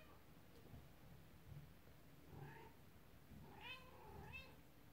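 Kitten mewing faintly: three short, high, arching mews in the second half.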